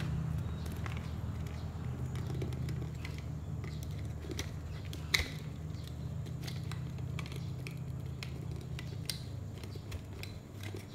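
Flathead screwdriver prying a power-window switch out of its plastic housing in a car door trim panel against its retaining clips: scattered small plastic clicks and scrapes, with one sharper click about five seconds in, over a steady low hum.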